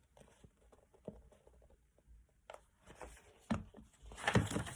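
A few faint clicks, then paper rustling near the end as a picture-book page is handled and turned.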